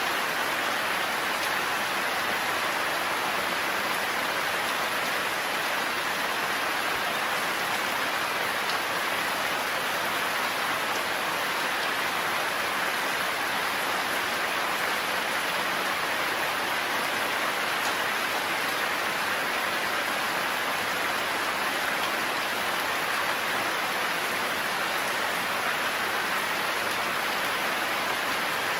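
Heavy rain falling steadily in a forest, with no thunder.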